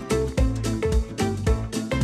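Background music with a steady beat and pitched instrument notes.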